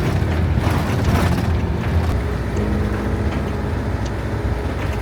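Camper van driving on the road: a steady engine and road hum, with irregular rattling and creaking from the van's body and fittings, most in the first two seconds.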